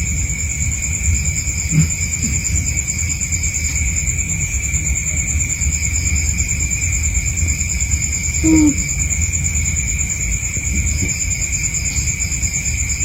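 A sleeping cat snoring, a steady low sound, with two steady high-pitched tones running behind it.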